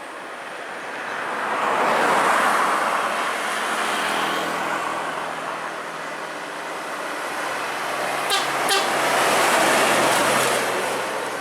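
Heavy vehicles passing on a road, their engine and tyre noise swelling twice, with a vehicle horn sounding as they go by. Two sharp clicks come about two-thirds of the way through.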